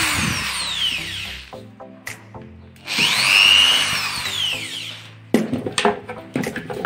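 Cordless drill-driver backing screws out of a wooden speaker cabinet in two bursts, the motor speeding up and winding down each time. A few clicks and knocks near the end.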